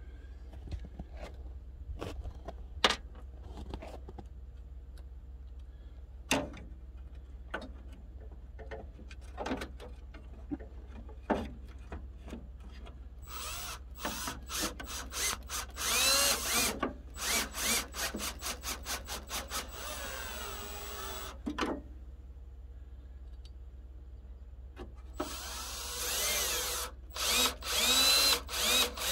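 Cordless drill-driver working at a pickup's headlight mount, run in many short bursts with its whine rising and falling. Scattered clicks and knocks of parts being handled come first, for about the first dozen seconds.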